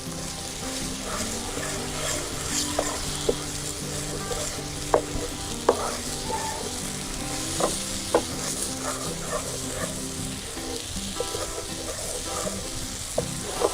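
Tomato masala sizzling in ghee and butter in a pan while it is stirred, a utensil clicking against the pan several times. The ghee has separated at the edges, the sign that the tomatoes are fully cooked.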